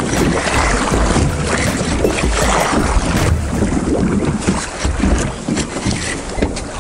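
Wind buffeting the microphone on open water, with choppy sea washing against a small boat's hull.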